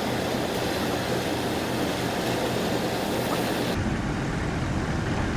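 A heavy truck engine running steadily, a low hum under a wash of noise. About two-thirds of the way through, the sound changes abruptly: the high end drops away and the low rumble grows stronger.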